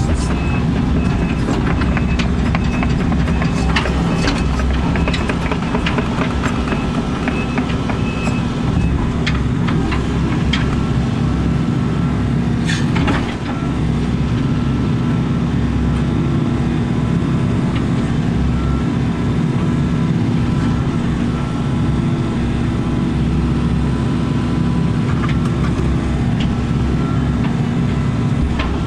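Excavator's diesel engine running steadily with a high hydraulic whine as the machine repositions on a broken concrete slab, with a few sharp knocks and clanks, the clearest about thirteen seconds in.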